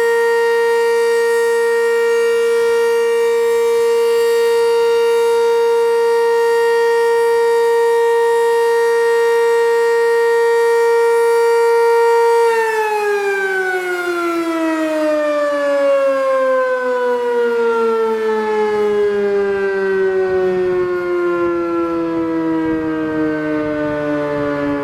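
Sentry 10V2T dual-tone doublestack outdoor warning siren sounding a steady tone at full speed, then about halfway through it winds down, its pitch falling smoothly: the siren's test signal ending.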